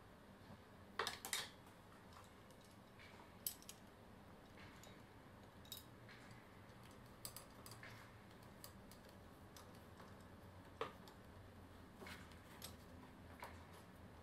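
Scattered light clicks and ticks at uneven intervals, the loudest cluster about a second in, from fingers picking at small bits of debris in a plastic tray. The room is otherwise near silent.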